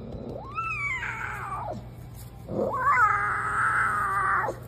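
Mountain lion cub calling twice: a first call that rises and then falls away, then a longer, louder call that rises and holds steady before cutting off near the end.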